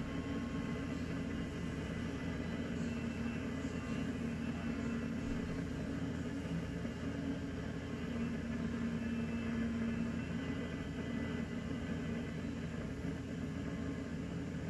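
Steady jet engine drone with a low hum, heard through a display's speakers playing cockpit footage.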